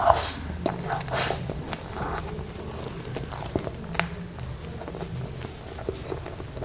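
Close-miked eating sounds of soft red velvet cake with cream frosting: a big spoonful taken in, then wet chewing and squishing with sharp lip smacks, the loudest about four seconds in.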